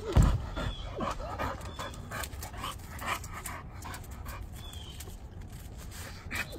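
Dog panting, with brief faint whimpers and scattered clicks and taps; a low thump about a quarter second in is the loudest sound.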